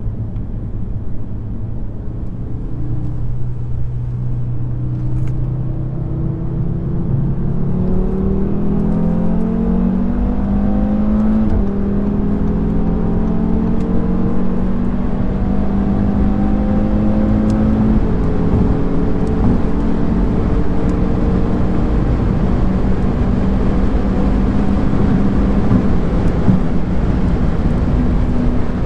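A 2018 Audi RS3's five-cylinder engine with its non-OPF exhaust, heard from inside the cabin under hard acceleration. The engine note climbs in pitch over the first ten seconds or so, then holds a steady high-speed drone under rising wind and tyre noise.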